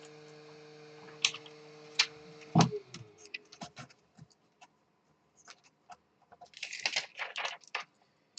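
Small clicks and scratching as a screwdriver tip prises and rolls the Mylar contact sheet off the circuit board of an Atari 1200XL keyboard, with a denser spell of scratching about seven seconds in. A low steady hum stops after a sharp click about two and a half seconds in.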